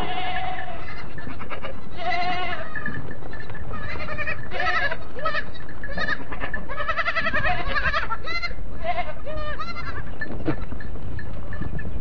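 Goat kids bleating: a string of high, quavering calls, several voices overlapping.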